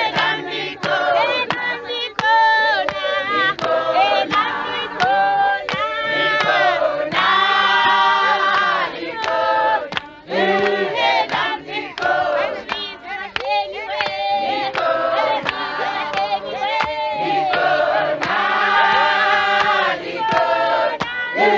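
A choir singing in harmony, several voices at once, with frequent sharp claps cutting through the singing.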